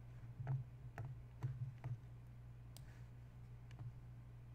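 Computer mouse clicking: about six short, separate clicks over the first four seconds, as the software is opened from the Start menu. A low steady hum runs underneath.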